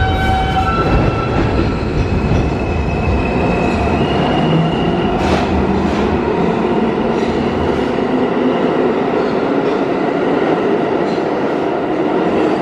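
R160 Alstom subway train moving along the platform: a steady loud rumble and rattle of the cars on the rails, with the motors whining in several tones, one of which steps higher about four seconds in.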